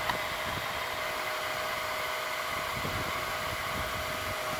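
Electric motor and fan taken from a hair dryer, running steadily as a homemade car air-conditioning blower: an even rush of air with a faint steady whine. A short click sounds just after the start.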